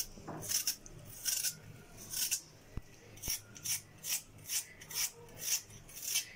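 Vegetable peeler shaving thin slices off a raw potato, a quick scraping stroke about twice a second.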